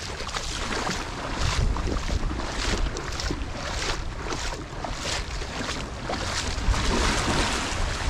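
Gulf of Mexico surf washing onto the beach, with wind rumbling on the microphone; the wash swells louder near the end.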